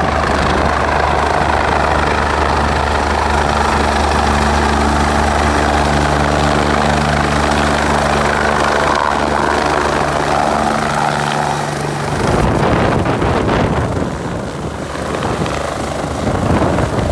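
MBB/Kawasaki BK-117 twin-turbine helicopter hovering low as it comes in to land, its rotor and turbines giving a loud, steady hum. About twelve seconds in, the steady hum gives way to a rougher, more irregular noise as the helicopter settles close by.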